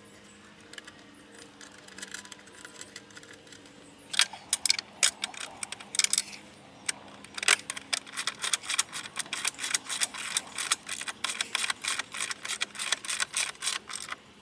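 Hand ratchet wrench clicking as the bolts of a new hawse fairlead are tightened onto an ATV winch. The clicks come in quick runs from about four seconds in, about four a second near the end.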